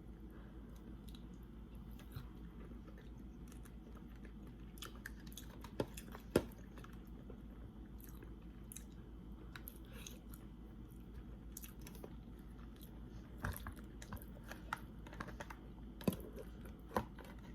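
A person chewing and biting food close to the microphone, with wet mouth sounds and scattered sharp clicks and smacks, a few of them loud, about six seconds in and again near the end.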